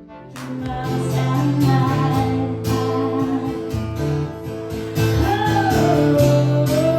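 Background music: a song with strummed acoustic guitar and a voice singing a melody.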